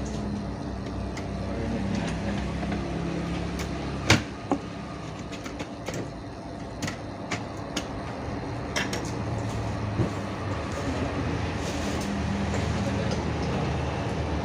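A dozen or so sharp little clicks and taps of hands working on an opened laptop's plastic parts and connectors, the loudest about four seconds in. A steady low rumble runs underneath.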